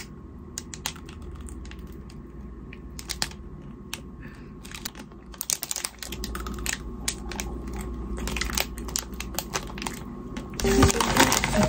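Wrapper of an ice cream bar crinkling and crackling in the hands in scattered bursts over a steady low room hum. About ten and a half seconds in, louder background music with a tune starts.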